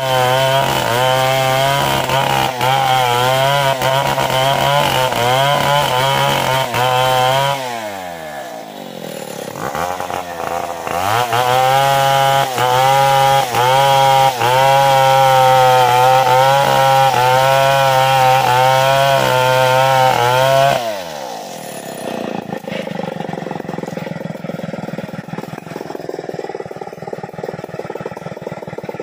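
STIHL two-stroke chainsaw at full throttle cutting into a damar tree trunk. About seven seconds in the throttle is released and the engine pitch falls. It revs back up a few seconds later and keeps cutting, then drops back to idle about two-thirds of the way through.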